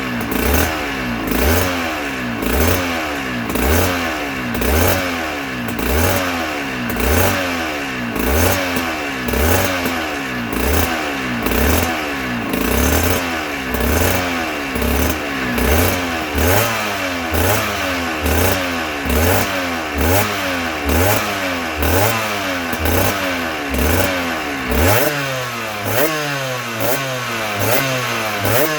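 2008 Aprilia RS125's 125 cc single-cylinder two-stroke engine running, its revs rising and falling over and over in a steady rhythm about once a second. The pattern shifts about 25 seconds in.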